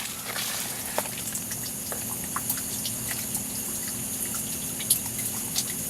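Water leaking from a water heater, with irregular drips and a trickle over a steady hiss and a low hum. The leak comes from the heater's pressure relief valve, which has gone bad.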